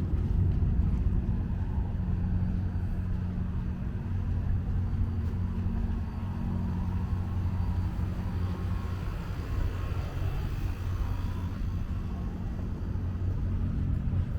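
An engine running steadily, a low drone with a constant pitch.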